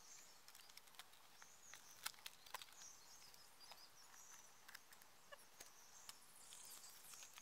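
Near silence with a few faint, scattered light clicks and taps from a cardboard strip and a plastic cup and spoon being handled, and faint high chirps now and then.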